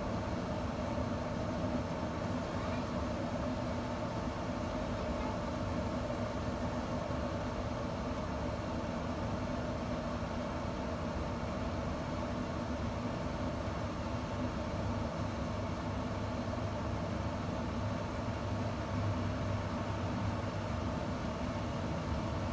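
Camp Chef SmokePro pellet smoker's combustion fan running, a steady hum with a few held tones.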